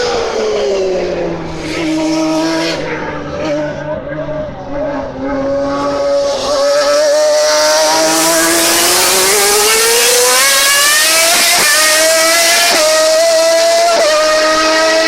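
Ferrari 412 T2 Formula One car's 3.0-litre V12 engine: its note drops to low revs in the first couple of seconds, holds there, then climbs steeply from about six seconds in and stays loud at high revs.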